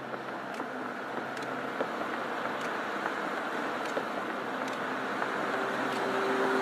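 A car approaching along the road, its engine and tyre noise growing steadily louder.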